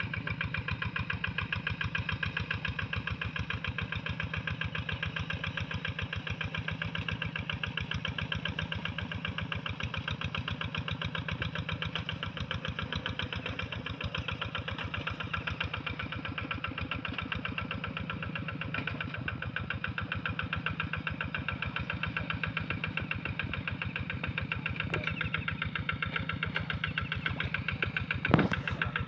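Hand tractor engine running steadily while ploughing a rice paddy, with an even, fast chugging of firing strokes. A single sharp knock comes shortly before the end.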